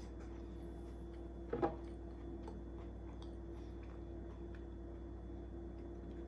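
A short double clink of tableware, about a second and a half in, as a table knife and a drinking glass are handled on a ceramic plate and a tile tabletop. Otherwise only a faint steady hum.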